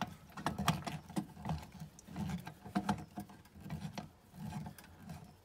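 Hand screwdriver driving a cover-plate screw into a steel electrical box: a run of small, irregular clicks and scrapes as the screw is turned.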